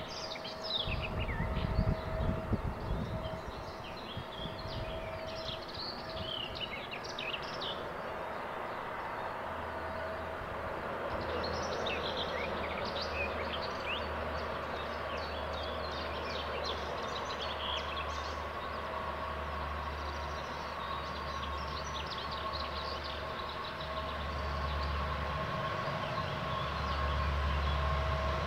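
Lockheed P-3C Orion's four Allison T56 turboprops just after touchdown: a low rumble at first, then a steady low propeller drone with a higher whine above it, growing louder near the end as the aircraft rolls closer. Birds chirp on and off.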